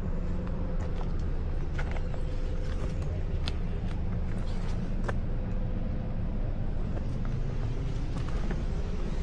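Steady low rumble of outdoor ambience, with a faint steady hum and scattered light clicks and taps.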